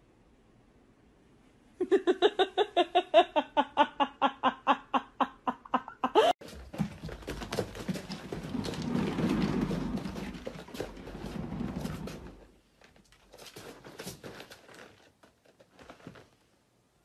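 A fast run of pitched, laugh-like pulses, about five a second for some four seconds, then the rumbling of a cat exercise wheel spinning as a cat runs in it, dying away into scattered rustles.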